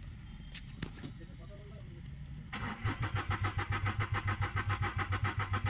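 Renault Kwid's three-cylinder petrol engine being cranked by the starter motor, about two and a half seconds in, after a couple of faint clicks. It turns over in fast, even pulses without catching: the engine is not firing.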